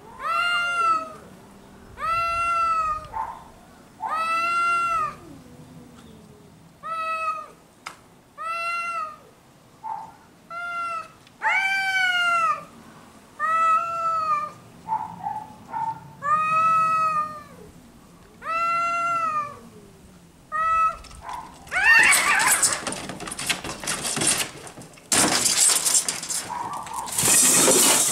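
Two domestic cats yowling at each other in a standoff: long drawn-out calls that rise and fall in pitch, one every second or two. About three-quarters through, the yowling gives way to a sudden loud, noisy stretch with a short screech as the fight breaks out.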